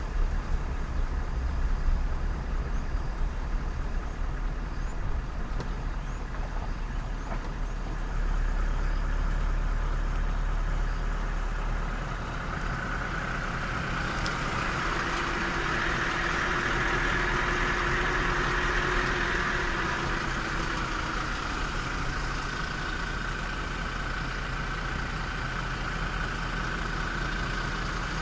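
Car engines idling steadily with a low hum. About halfway through, a steady, higher-pitched hum joins in and stays.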